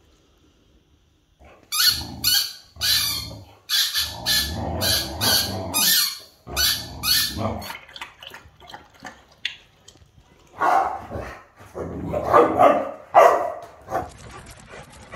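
Boxer dog lapping water from a bowl, a run of quick wet laps about two to three a second, then a few short barks near the end.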